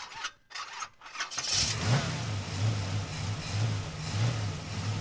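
An engine being cranked in a few short bursts, catching about a second in and then running with a slow, regular low pulse.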